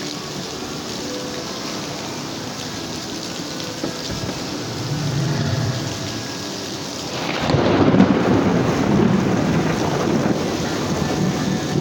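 Heavy rain pouring steadily, with thunder rumbling low about five seconds in and a louder thunder rumble breaking suddenly about seven seconds in and carrying on.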